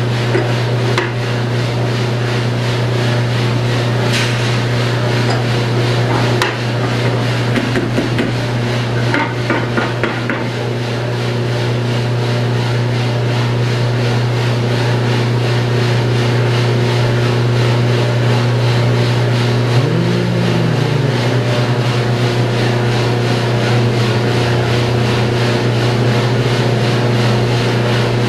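Coffee roaster running with a batch of beans inside: a loud, steady machine hum from its motor and fan. A few short clicks and knocks come in the first several seconds.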